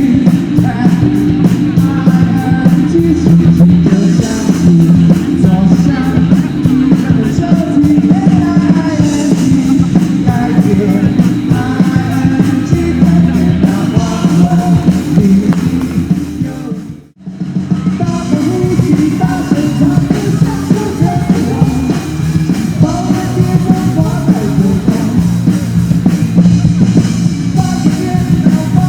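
Live rock band playing with a singer and drums, loud and steady; the music cuts out for an instant a little past halfway, then comes straight back in.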